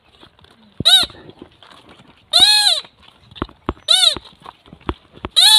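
Four loud, high-pitched calls, each rising then falling in pitch, about a second and a half apart, with a few sharp knocks between them.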